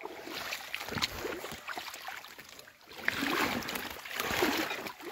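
Footsteps wading through shallow swamp water, sloshing and splashing, loudest about three seconds in and again near the end.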